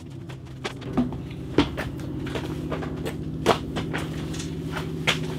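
Paint cans and a plastic bucket set down one at a time on a wooden beam as weights: several sharp knocks and clunks, the loudest about a second and a half in and again about three and a half seconds in, with footsteps. A steady low hum runs underneath throughout.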